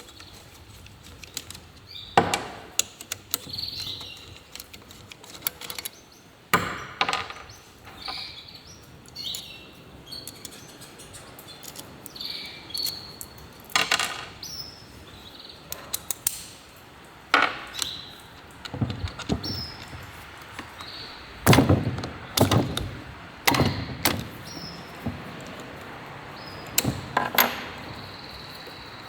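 Metal tools and engine parts knocking and clinking at irregular intervals, some strikes leaving a short high metallic ring, as a Honda Wave 110 engine is worked on by hand.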